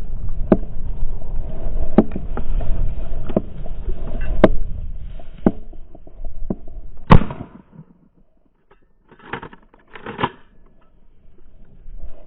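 Strong wind buffeting the microphone, with a series of sharp knocks and one loud crack about seven seconds in; the wind noise then drops away, leaving two short rustling bursts near the end.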